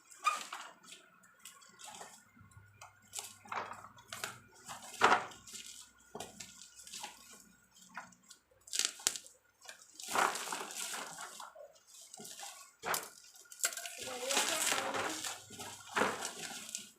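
Toy packaging being handled and opened: irregular rustling and crinkling with scattered clicks and knocks, in longer bursts about nine and fourteen seconds in.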